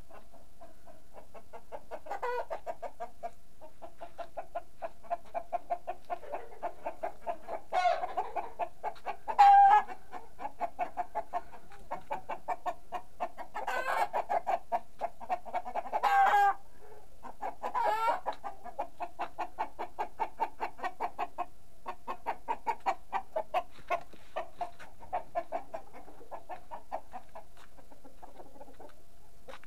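Domestic chickens clucking in quick runs of short notes, with several louder calls standing out in the middle stretch.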